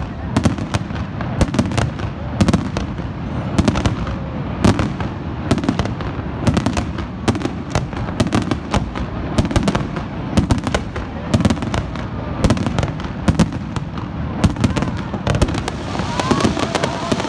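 Aerial fireworks display: shells bursting in rapid, irregular bangs, several a second, in a continuous barrage.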